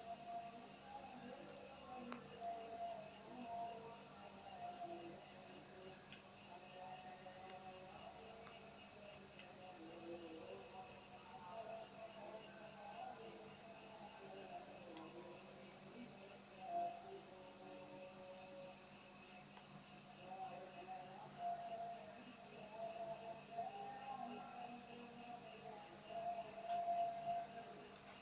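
Night insect chorus: crickets trilling in steady, overlapping high notes, with one insect adding a short repeated chirp about once a second through the middle.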